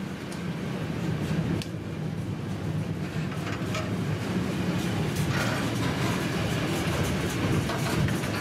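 Freight train of intermodal wagons carrying curtain-sided swap bodies rolling steadily past close by: a continuous rumble of wheels on rails with scattered sharp clicks.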